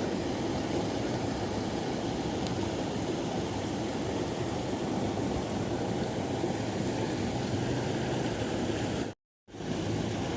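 Steady rushing of river water, with a brief dropout to silence about nine seconds in.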